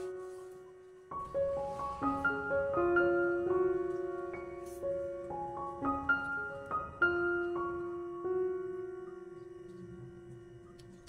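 Background piano music: a gentle melody of single notes that strike and ring out, easing off briefly about a second in before carrying on.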